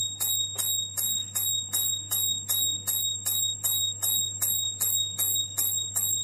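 Homemade relay flasher circuit sounding its 5 V buzzer as a bike indicator: short beeps in an even rhythm, about two and a half a second.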